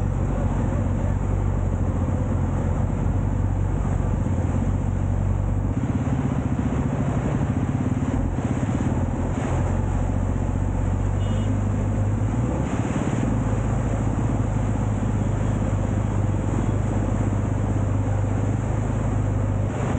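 Motorcycle engine running steadily under the rider, heard from on the bike, its pitch shifting slightly a couple of times, with road traffic around it.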